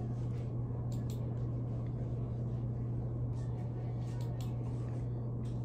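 Steady low hum of an indoor room, with a few faint light clicks and rustles.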